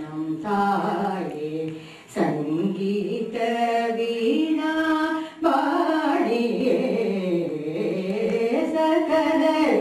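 A woman singing Carnatic vocal music solo into a microphone, in long held notes that glide between pitches, with short breaks for breath about two and five and a half seconds in.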